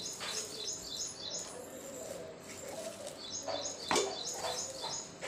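Spatula scraping and knocking against a kadhai as a thick paneer-and-condensed-milk mixture is stirred, with one sharper knock about four seconds in. A bird chirps in quick repeated runs in the background, at the start and again from about three seconds in.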